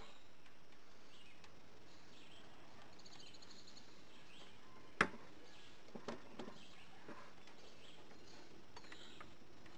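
Faint outdoor background with birds chirping now and then, one short trill about three seconds in. About halfway through comes a single sharp click, then a few lighter clicks, from hand tools working loose the golf cart's old fuel pump.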